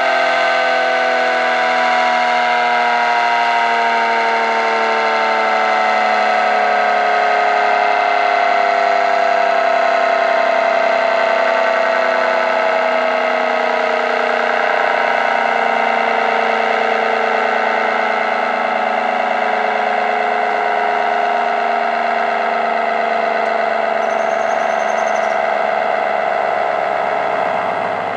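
ACA Screamer dual-tone (9/12-port) outdoor warning siren sounding loudly, its chord falling slowly and steadily in pitch as the rotors wind down.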